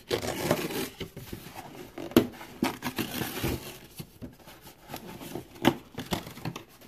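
Cardboard box of a Hot Wheels track set being opened and handled: flaps lifted and rubbed, with rustling and scattered sharp knocks, the loudest about two seconds in and again near six seconds.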